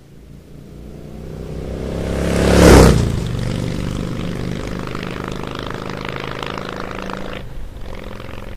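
An engine growing steadily louder to a peak with a rush of noise about two and a half seconds in, like a vehicle passing close, then running on steadily and thinning out near the end.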